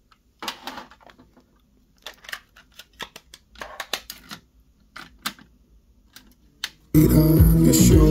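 Plastic clicks and clatter of a cassette being handled and loaded into a Proton AD-200 cassette deck, the cassette door pushed shut and the transport keys pressed. About seven seconds in, music from the tape starts playing.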